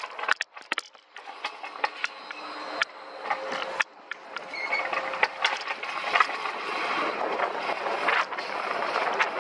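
Alpine coaster sled rolling on its steel tube track, wheels rumbling and clattering with scattered sharp clicks, getting steadily louder.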